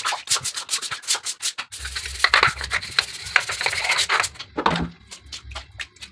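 Green scouring pad scrubbing a wet, rough stone slab in quick back-and-forth strokes, with a dense run of hard scrubbing in the middle and a few scattered strokes near the end.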